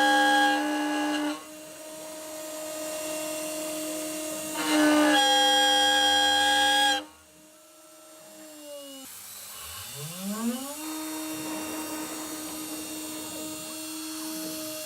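CNC spindle with an 8 mm carbide cutter milling aluminium: a steady high spindle whine, with two loud stretches of screeching cut at the start and again about five to seven seconds in. After the cutting stops the whine sinks, then rises again from a low hum to full pitch about ten seconds in as the spindle spins back up.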